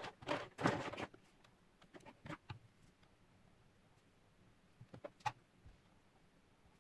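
Plastic makeup tubes and pencils clattering as they are picked up from a pile and set down on a wooden tabletop and a kitchen scale. The sound comes as short bursts of knocks and rustles: a busy cluster in the first second, a few more around two seconds in, and a brief one a little after five seconds.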